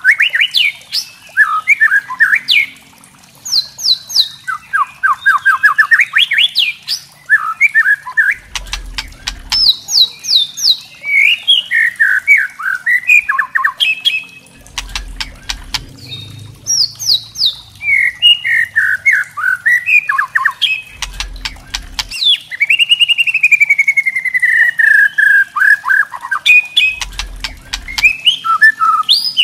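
White-rumped shama singing loudly and without a break: clear whistled phrases, fast trills, long downward-sliding notes and bursts of dry rattling chatter (the kretekan call). Faint low thumps come about every six seconds underneath.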